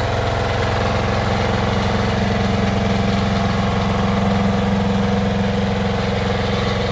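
BSC walking tractor's engine running steadily under load while its PTO-driven rotary plough turns the soil into a ridge.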